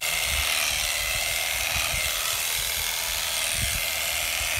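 Electric shearing clippers running steadily as they cut through an animal's fleece.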